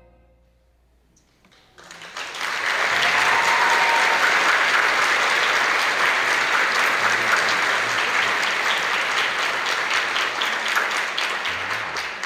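Theatre audience applauding. It starts about two seconds in after a brief hush, as dense, steady clapping that eases off slightly near the end.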